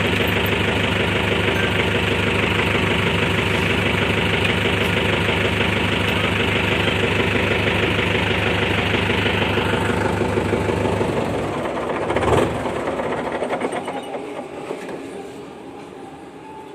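Mahindra Arjun Novo 605 tractor's four-cylinder diesel engine idling steadily, then shutting off about eleven seconds in and shuddering to a stop with a single clunk.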